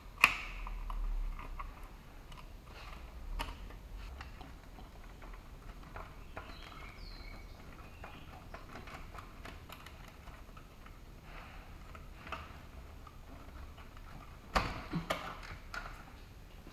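Scattered small clicks and knocks of hands handling rubber hoses and plastic parts in a car's engine bay, with a quick cluster of louder knocks near the end.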